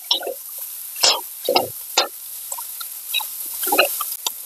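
Metal spatula scraping and knocking against a steel wok while stirring and breaking up rice, in a series of irregular short strokes.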